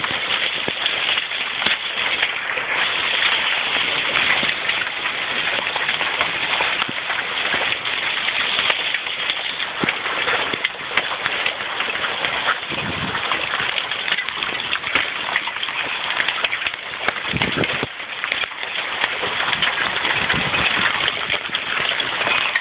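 Hail and rain coming down hard, a dense steady clatter made of countless small hits with sharper individual strikes standing out.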